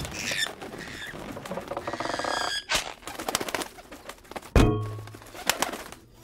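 Cartoon slapstick sound effects over music: several thuds and knocks, the loudest a heavy thump about four and a half seconds in, with pigeon sounds mixed in.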